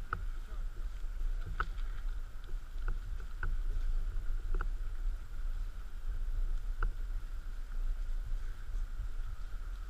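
Steady low rumble of wind and movement on the microphone, with about half a dozen sharp snaps scattered irregularly through it.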